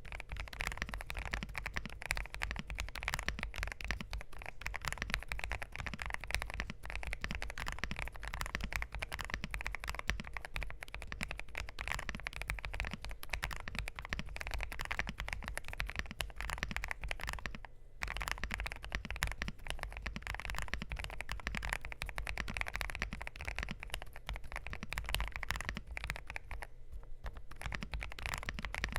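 Continuous typing on a Hexgears M2 mechanical keyboard with lubed, filmed Kailh fence linear switches, PBT keycaps and a polycarbonate plate: a dense, even stream of muted keystroke clacks, with a brief pause about eighteen seconds in.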